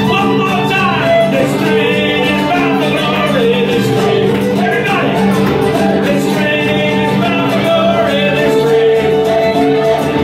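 Live folk band with an acoustic guitar strummed at a brisk pace and a man singing into a microphone, with a fiddle in the mix.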